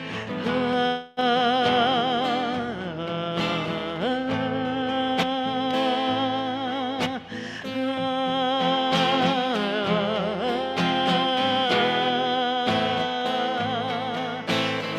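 Acoustic guitar strummed under a held melody line whose pitch wavers, a musical passage between verses of a sung bard song. The sound briefly cuts out about a second in.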